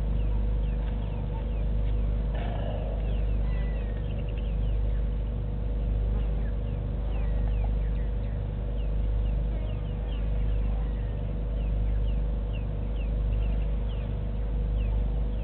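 Outdoor waterhole ambience: a deep, steady rumble that swells and fades about every second and a half, with a faint constant hum and many short, high, falling bird chirps over it.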